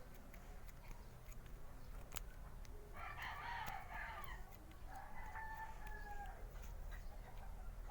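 A rooster crowing once, starting about three seconds in and lasting about three seconds, ending on a long held note. Faint scattered clicks throughout.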